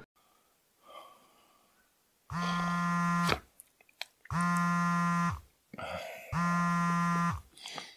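Mobile phone vibrating on a hard surface for an incoming call: three steady buzzes, each about a second long, with a second's pause between them.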